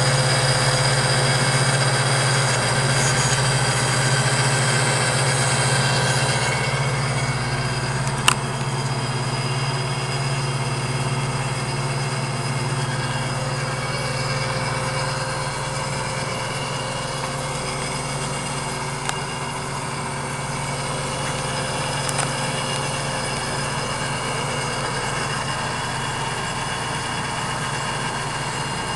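A lathe-mounted tool post grinder and the lathe run steadily, a motor hum with a whine, as the grinding wheel works a practice cam blank into shape. The high hiss eases about six seconds in, and there is one sharp click about eight seconds in.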